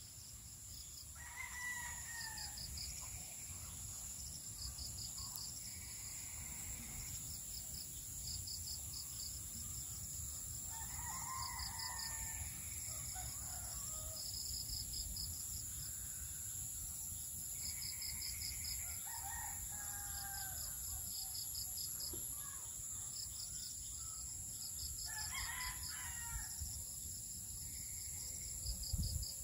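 Roosters crowing four times, each crow a couple of seconds long, spaced several seconds apart. Insects drone steadily throughout, with a fast pulsed chirping repeating in short runs.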